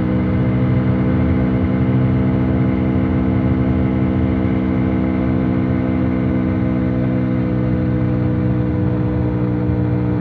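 Hero XPulse 200's single-cylinder 200cc engine running at a steady speed through its stock exhaust, an even, unchanging note with no revving.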